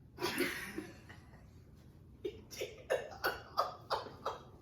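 A person laughing: a short breathy burst near the start, then a run of short laughing bursts, about three a second, from about two seconds in.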